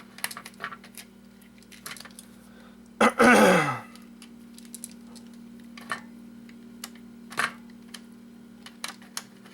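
Small scattered clicks and ticks of a screwdriver and plastic casing parts as a plug-and-play TV game is unscrewed and taken apart. About three seconds in, a person clears their throat once, loudly, because of a lingering sore throat.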